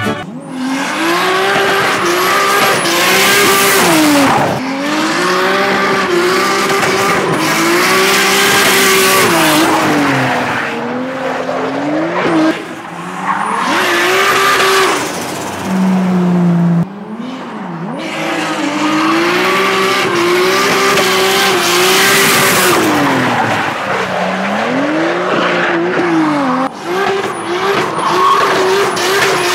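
A car engine revving up and dropping back again and again, with repeated bursts of tyre squeal, as a car is drifted.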